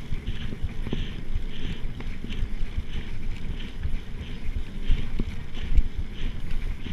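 Mountain bike ridden fast on a dirt forest track: steady rumble of the tyres with wind buffeting the chest-mounted action camera's microphone, and a few short rattles of the bike over bumps.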